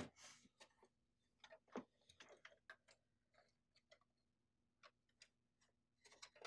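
Faint, scattered clicks and taps of hard plastic as the printer's scanner lid, with the document feeder on top, is lifted open and lowered shut.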